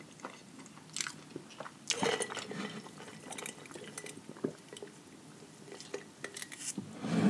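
Close-miked mouth sounds: soft chewing and lip smacking with scattered small clicks. There is a louder cluster about two seconds in, then sipping through a metal straw from a glass jar.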